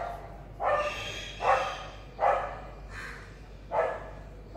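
A dog barking in a steady series of about five short barks, each a little under a second after the last.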